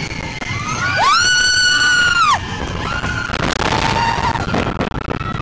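A rider's long, high-pitched scream about a second in, rising, held and falling away, with shorter cries after it, over the steady rumble of the roller coaster train running on its track.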